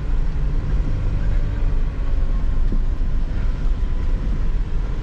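Mitsubishi L200 Triton pickup's engine running steadily under load as the truck climbs a dirt hill track in two-wheel drive, with a light knock about halfway through.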